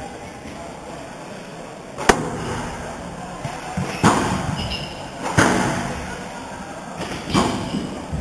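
Squash rally: a sharp crack of racket on ball about two seconds in, then further hard hits of the ball off racket and walls every one and a half to two seconds. A brief shoe squeak on the wooden court floor comes after the second hit.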